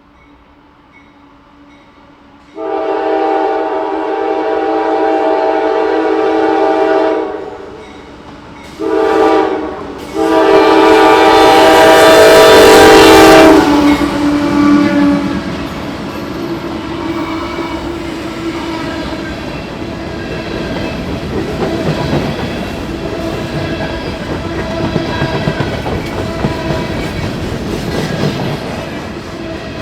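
Freight train's diesel locomotive horn sounding for a grade crossing: a long blast, a short one, then a longer and loudest blast. The locomotives then pass and the freight cars roll by steadily, wheels clattering on the rails.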